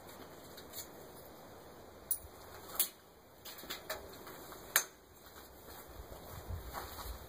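A few sharp metallic clicks and knocks from the diamond trommel's screen drum and its fittings being handled, the loudest three about two, three and five seconds in. A low rumble comes up near the end.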